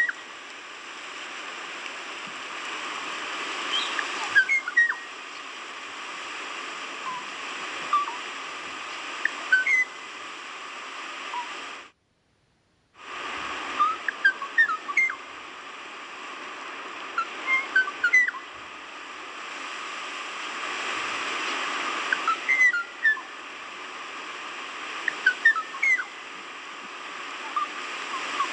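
Kauai ʻōʻō singing: short, clear whistled notes in clusters every few seconds over a steady hiss. The sound drops out completely for about a second partway through.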